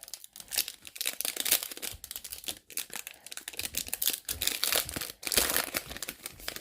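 Foil wrapper of a trading-card pack crinkling and tearing as it is torn open by hand, an irregular run of crackles and rips.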